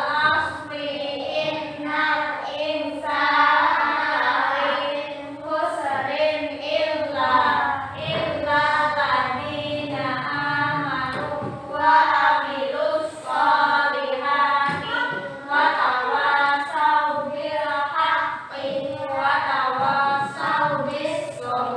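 A class of young children singing together in unison, one continuous group song in short rhythmic phrases.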